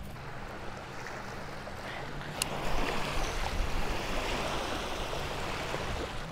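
Small lake waves lapping and washing against a rocky shore, a steady wash that grows a little about halfway through. A single sharp click sounds shortly before that.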